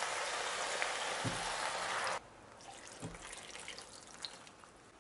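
Water being poured into a pot of frying vegetables and meat, a steady hiss that cuts off suddenly about two seconds in. Faint clinks follow.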